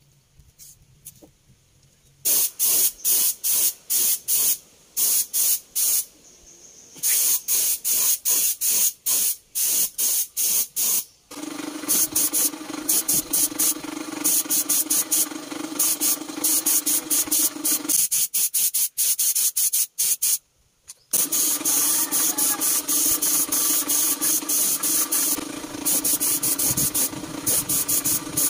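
Gravity-feed paint spray gun hissing in many short bursts as the trigger is pulled and released over and over. Part way through, a steady machine hum joins underneath, cuts out for a few seconds, then comes back.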